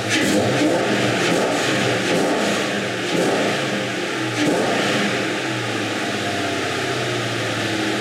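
Ford Mustang GT's 4.6-litre V8 running with a defective coil-on-plug ignition coil on cylinder 4, the misfire that sets a P0304 cylinder-4 misfire code.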